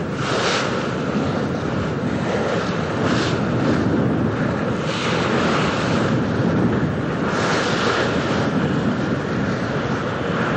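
Wind buffeting the microphone over a steady rush of water and a low rumble, swelling louder every few seconds.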